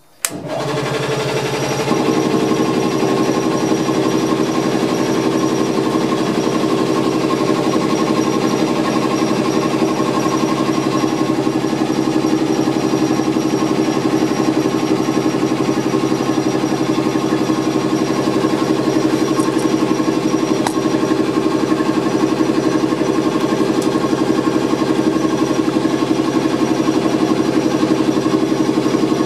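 A switch clicks and a class 451 electric unit's air compressor starts, comes up to speed over about two seconds, then runs steadily with a fast mechanical chugging, charging the train's air brake system.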